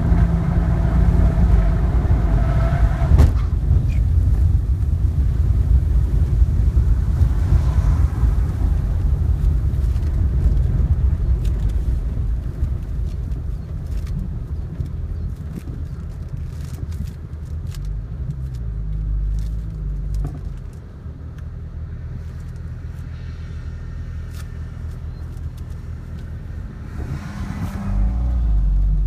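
Cabin sound of a 2010 BMW 3 Series running off the track into the grass. Engine and tyre rumble fades as the car slows from about 70 mph to a near stop, with a sharp knock about three seconds in and scattered clicks while it rolls over the grass. Near the end the engine picks up again as the car moves off.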